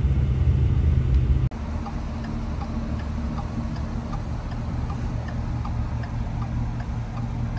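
Cabin sound of a Roush-supercharged Ford SVT Raptor's 6.2-litre V8. A heavy low rumble while under way changes abruptly, about a second and a half in, to a steadier, quieter idle at a stop, with a faint light ticking.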